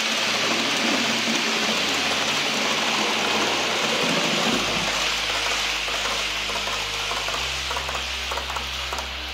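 H0-scale model ÖBB Railjet train rolling past on the layout track: a steady rushing hiss of its wheels on the rails, easing a little near the end.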